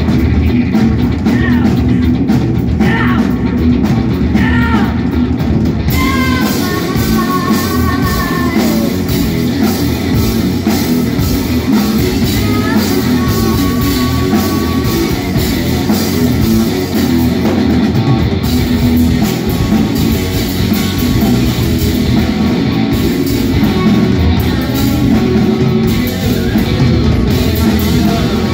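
A rock band playing live, with distorted electric guitars and a drum kit and a woman singing lead vocals over them.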